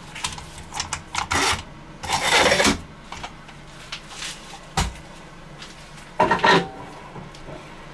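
Handling noises at a stopped wood lathe: irregular rubbing and scraping, with one sharp click a little before five seconds, as a glued resin-and-wood blank on a waste block is fitted onto the headstock spindle.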